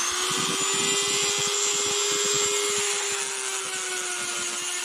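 Dremel rotary tool running at steady high speed, its bit grinding against the work with a constant whine and a rough scraping noise; the bit is old and worn out, so it removes material slowly.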